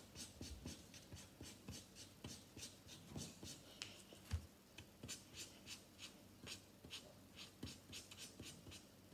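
Faint felt-tip marker scratching on paper in quick short strokes, a few a second, with one soft low thump about four seconds in.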